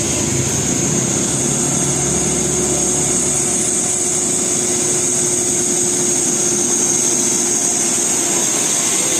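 Large bus diesel engine running steadily, with a steady high-pitched whine over the low rumble.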